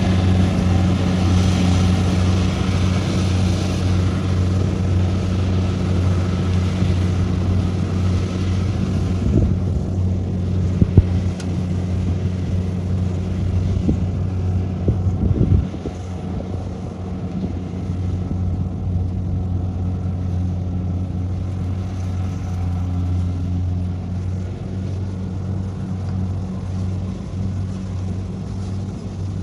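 Kubota combine harvester's diesel engine running steadily as it harvests rice, a deep even drone. A few sharp knocks come about ten to eleven seconds in, and the sound drops a little about halfway through.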